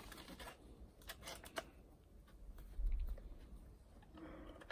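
Scissors snipping at a stiff plastic blister pack, with a few sharp clicks and crackles, most of them about a second in. A low bump near three seconds in.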